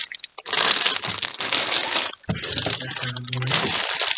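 Clear plastic packaging bags crinkling and rustling as bagged plush toys are handled and lifted out of a cardboard shipping box, with a brief break about two seconds in.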